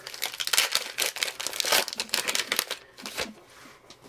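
A 2020 Topps Gypsy Queen baseball card pack's wrapper being torn open and crinkled by hand: dense crackling for about three seconds, then a single short tap.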